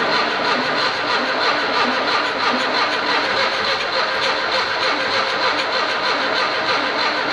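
Ford Scorpio's 1.8 OHC carburettor four-cylinder, freshly rebuilt, being cranked over on the starter motor on its first start. A steady, even churning runs on for several seconds without a clear catch.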